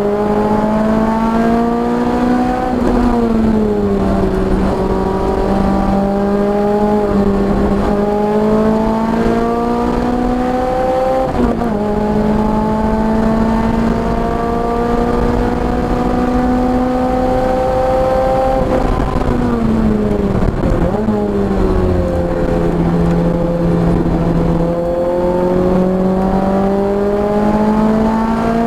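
Car engine on a race track, pulling in long steady climbs in revs. The revs fall back a few seconds in and again about two-thirds through as it slows for corners. About 11 seconds in there is a sharp drop at a gear change, and after each drop it pulls up again.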